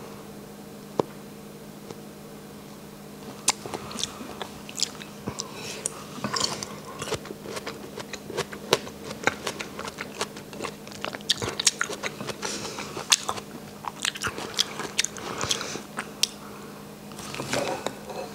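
A person chewing a soft cantaloupe melon ball close to the microphone: wet mouth clicks and smacks begin about three seconds in and go on to near the end, over a faint steady hum.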